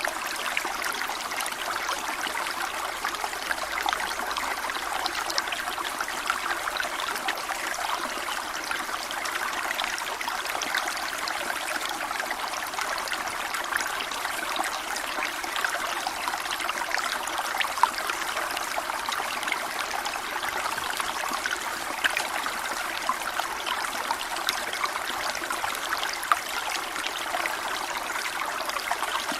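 A small stream running over stones, a steady babbling and trickling of water with little splashes all through.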